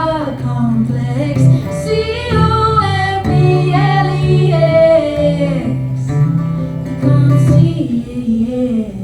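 Live band performing a song with a woman singing lead, the music falling away right at the end.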